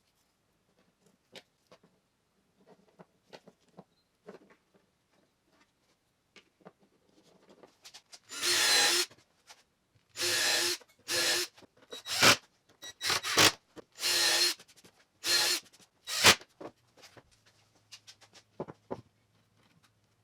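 Power drill running in about nine short bursts, each a fraction of a second to a second long, after some faint handling clicks.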